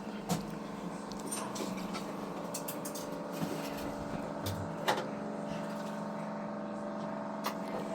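A steady low mechanical hum with a few sharp clicks and knocks.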